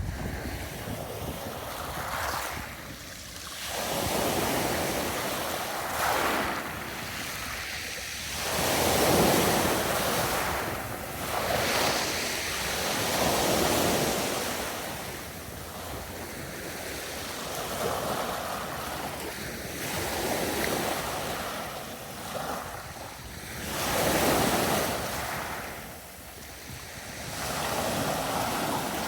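Sea waves breaking and washing up on a beach, rising and falling in repeated surges every few seconds, with wind on the microphone.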